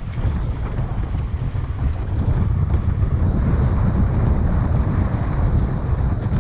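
Wind buffeting the microphone of a camera on a windsurfer, with water rushing under the board as it sails. A steady, heavy rumble that grows a little louder about two and a half seconds in.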